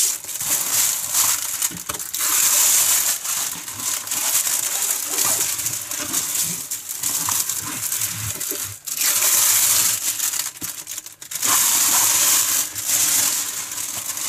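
Loud crinkling of the clear plastic protective film on a diamond painting canvas as hands lift it and press it back down. It comes in several surges with short lulls between them.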